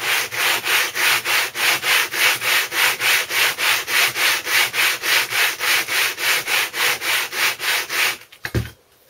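Aluminium cylinder head of a Briggs & Stratton 5 hp engine scrubbed back and forth face-down on 120-grit sandpaper, about four strokes a second. The head is being lapped flat, which shows up its high and low spots. The rubbing stops near the end, followed by a short knock.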